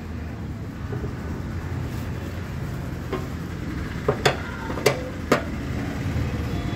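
T-handle wrench tightening the nuts on a fuel gauge sender plate in a steel motorcycle fuel tank. It gives a handful of sharp metallic clicks, bunched from about three to five and a half seconds in, over a steady low background rumble.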